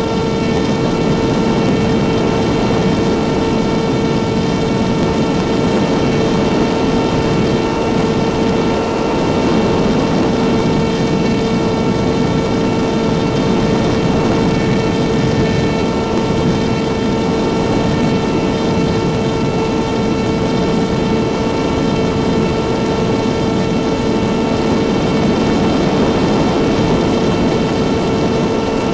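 RC model airplane's motor and propeller running steadily in flight, heard from on board: one held whine that does not change pitch, over a heavy rush of air.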